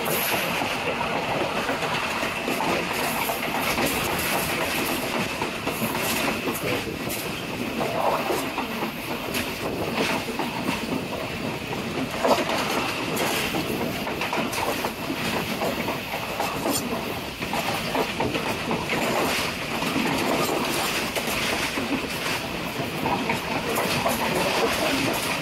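Tezgam passenger train running on the line, heard from its rear coach: a steady rumble of the carriages with irregular clicks of the wheels over the rail joints.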